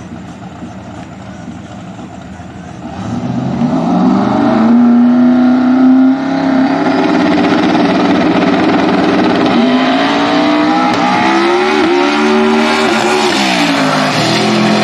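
A 2,500 hp twin-turbo V8 drag car idles quietly at the start line, then about three seconds in is brought up to a loud, steady high rev held for several seconds. Later it launches down the track, its pitch climbing and dropping back a few times as it shifts gears.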